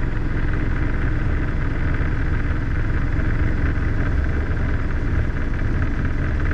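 Robinson R22 helicopter's engine and main rotor running steadily, heard from inside the cockpit while the helicopter hover-taxis forward.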